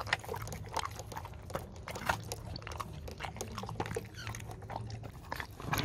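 A Siberian husky and a chihuahua eating wet dog food together from a steel-lined bowl. Their chewing and licking make many quick, irregular wet clicks.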